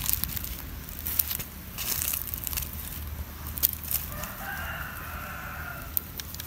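A rooster crows once, about four seconds in, for nearly two seconds. Before that, a few sharp crackles and clicks are heard.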